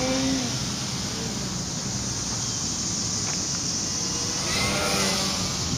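Electric RC aerobatic plane flying overhead: its brushless motor and 13x6.5 propeller buzz, rising and falling in pitch as the plane manoeuvres. Wind noise hisses over the microphone.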